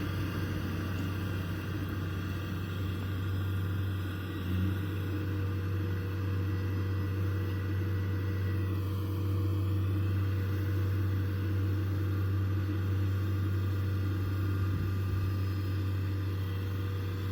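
Kubota DC70 Plus combine harvester's diesel engine running steadily at a constant speed, with a brief thump about four and a half seconds in.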